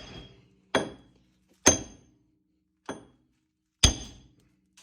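Big hammer striking a wheel stud to drive it out of the hub, four separate blows with a short metallic ring after each. The third blow is lighter.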